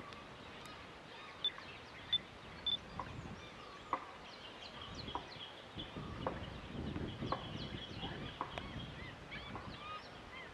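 Birds chirping and calling: many short chirps and brief whistled notes, some in quick runs, with a few sharp ticks, all faint.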